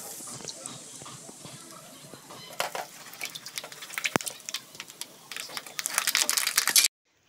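Peanuts frying in hot oil, sizzling and crackling as a perforated ladle of raw nuts is lowered into the pan. The crackle grows louder over the last couple of seconds, then cuts off suddenly.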